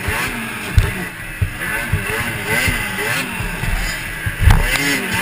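Two-stroke engine of a 2006 Ski-Doo MXZ X 440 snocross sled revving hard, its pitch rising and falling quickly as the rider works the throttle over the bumps. Two heavy thumps, about a second in and near the end, as the sled lands.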